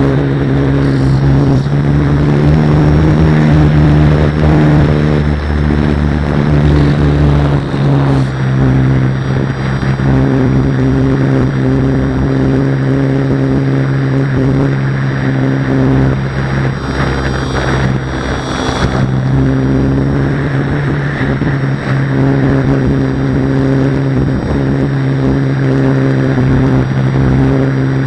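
A steady motor-like drone throughout, its pitch shifting slightly a few times, with wind buffeting the microphone underneath.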